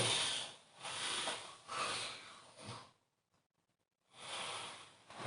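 A person snoring with ragged, snorting breaths: a heavy snore and two or three shorter rasping snorts, then after a pause of about a second another snore starts.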